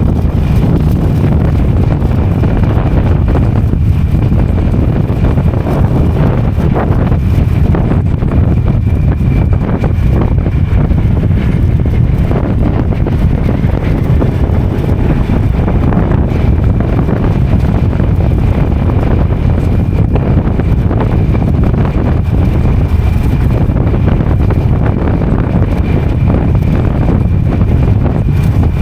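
Motorcycle running along a road at a steady pace, heavily masked by wind buffeting the microphone.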